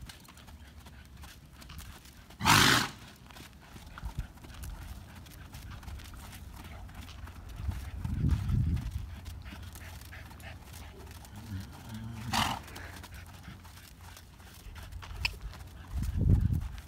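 Young Thoroughbred gelding trotting on sand footing, hooves thudding softly, with two hard snorts through the nose: a loud one about two and a half seconds in and a shorter one near twelve seconds. The nose-clearing snorts are a symptom of his head-shaking syndrome.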